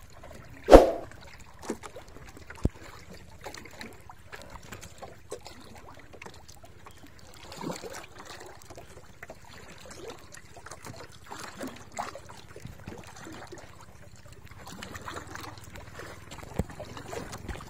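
Sea water lapping and splashing against a small boat's hull, with scattered small knocks and one sharp knock about a second in.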